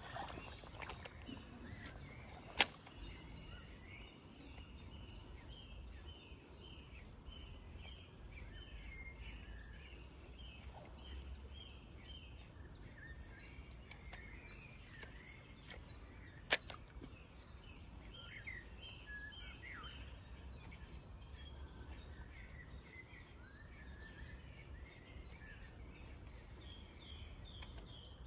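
Spinning rod and reel being cast and retrieved. Twice, about fourteen seconds apart, the reel's steady rapid ticking stops and the cast goes out with a quick swish that ends in a sharp click. The reel's ticking of winding in resumes after each cast.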